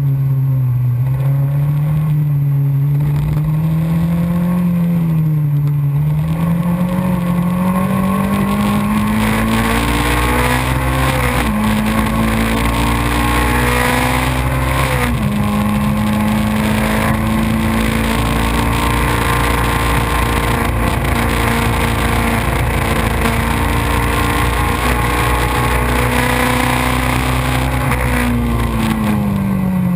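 Racing kit car's engine heard onboard at full race pace, its pitch dipping and climbing through the first half with a couple of quick gear steps. It then holds high and steady for about twelve seconds before easing off near the end, over a constant rush of wind and road noise.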